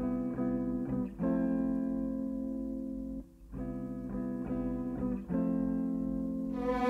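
Instrumental film-score music: the opening bars of a string arrangement, held chords in two phrases with a short break about three seconds in.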